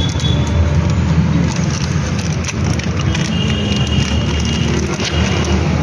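Steady low rumble of a running motor vehicle, with scattered light clicks and a brief high squeak or whine twice.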